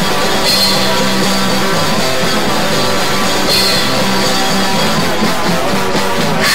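Rock music track playing loud and steady.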